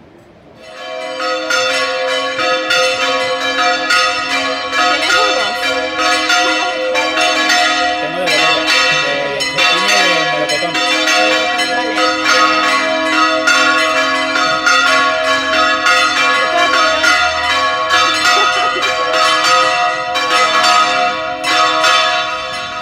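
Church bells ringing in a fast, continuous peal, rising in about a second in, with many overlapping strikes and a lingering hum.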